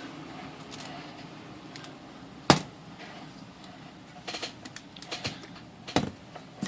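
Smith Corona Skyriter portable typewriter being turned upright and worked after a draw band repair: a sharp knock about two and a half seconds in, a run of lighter clicks and rattles, then another sharp click near the end.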